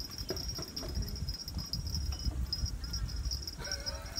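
Insects chirring in a high, steady, pulsing drone with a few short breaks, over a low rumble.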